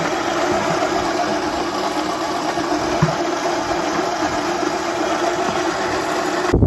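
Grain mill running steadily while grinding shelled corn into feed, with a steady mechanical hum; it cuts off suddenly at the end.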